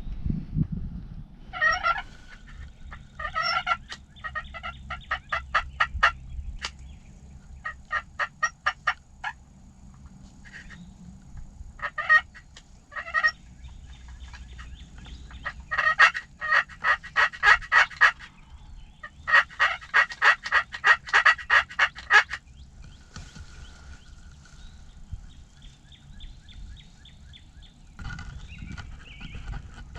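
Wild turkey calling: a few short yelps early, then runs of fast, evenly spaced notes, the two longest lasting two to three seconds each about halfway through, with quieter calling after them.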